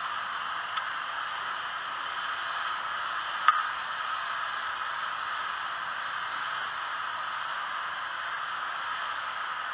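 Steady static hiss, with a single sharp click about three and a half seconds in.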